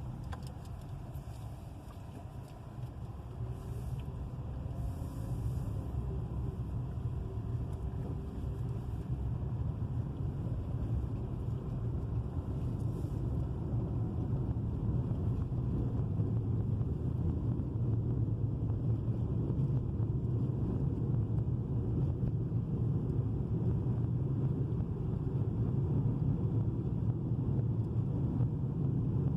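Steady low road-and-engine rumble heard inside a moving vehicle, growing a little louder over the first dozen seconds or so and then holding steady as it picks up speed.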